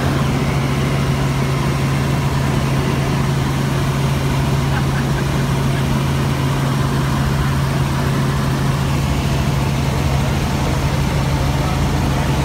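Helicopter in flight, heard from inside the cabin: a steady engine and rotor drone with a strong low hum that does not change.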